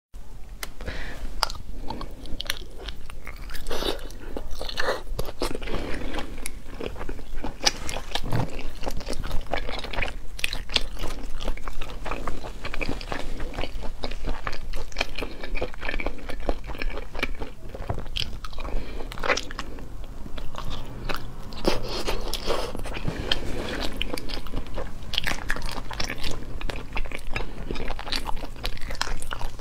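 Close-miked eating: a person biting and chewing sauce-coated food, with a steady stream of short, crisp crunches and wet mouth clicks.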